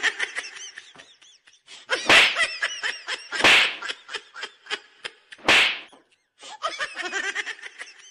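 High-pitched laughter, broken by three sharp slaps about a second and a half apart.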